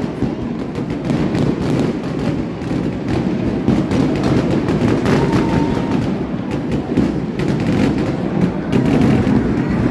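Fireworks going off overhead with repeated bangs and crackles over the steady noise of a large stadium crowd.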